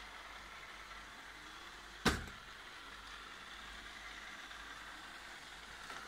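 İrobat Queen Q1 robot vacuum running, a steady quiet hum of its motor and brushes, with one sharp knock about two seconds in.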